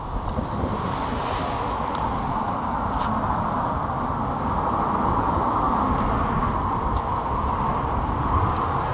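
Steady rumble of road traffic passing along the street.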